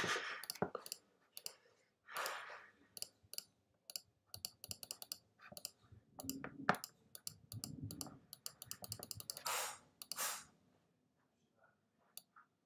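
Typing on a computer keyboard: irregular keystroke clicks, fairly quiet, with a few short rushes of noise in between.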